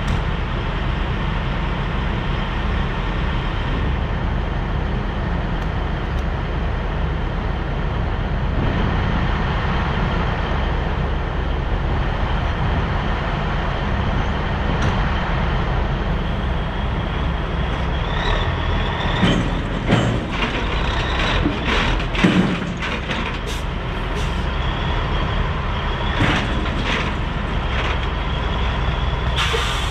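Diesel engine of a 1984 Peterbilt cabover semi idling steadily. In the second half come a cluster of short, sharp clicks and hisses.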